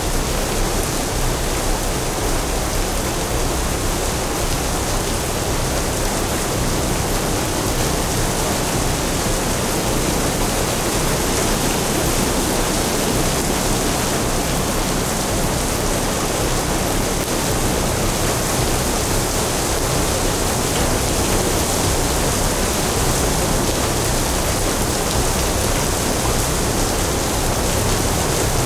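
Steady rain sound, an even hiss spread from low rumble to high frequencies, with no breaks or changes.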